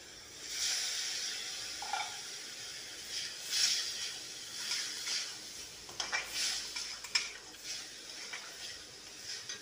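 Water poured into a kadhai of hot frying masala sizzles, starting about half a second in. A metal spatula then stirs and scrapes against the pan, with short clinks, while the sizzle goes on underneath.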